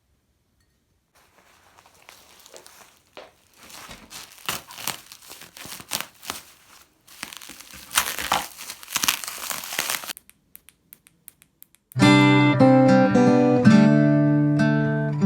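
Packaging crinkling and rustling in irregular bursts with sharp crackles, then a few faint clicks. About twelve seconds in, louder strummed acoustic guitar music begins.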